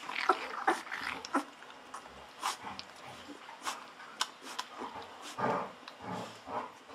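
Golden retriever puppy about two weeks old sucking milk from a bottle nipple: repeated wet clicking and smacking sucks, with a few short squeaks and whimpers between them.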